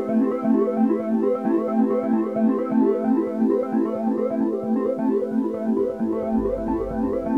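Background music: a quick, steady run of repeated pitched notes, with a bass line coming in near the end.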